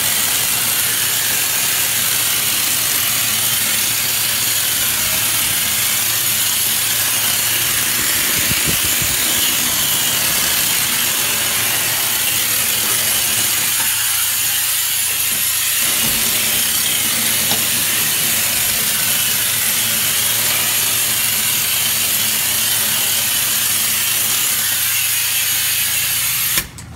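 Compressed-air drywall texture spray gun spraying knockdown mud in a steady, loud hiss that cuts off suddenly near the end.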